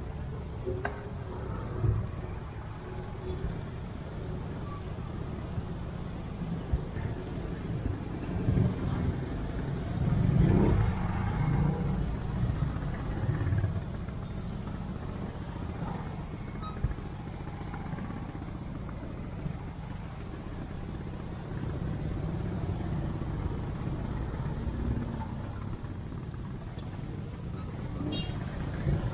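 Slow, dense scooter and car traffic: small motorbike engines running and revving close by, with a louder swell of engine noise about ten seconds in.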